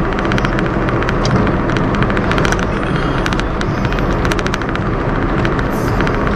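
Steady road and wind noise from a moving Honda Brio, picked up by a camera strapped to the outside of the car body, with many sharp ticks scattered through it.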